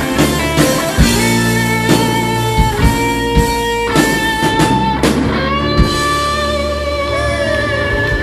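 Live rock band playing electric guitar over a drum kit. About five seconds in a loud cymbal crash hits and the band lets long notes ring out, like the closing chord of a song.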